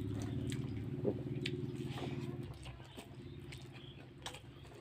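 Eating by hand from a steel plate: chewing and fingers squishing rice and curry, with a few sharp clicks. A low steady mechanical hum sits underneath and fades about halfway through.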